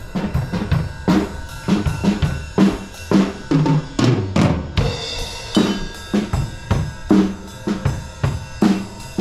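Drum kit played during a sound check: a fast run of kick-drum and snare strikes several times a second, with a cymbal wash about five seconds in.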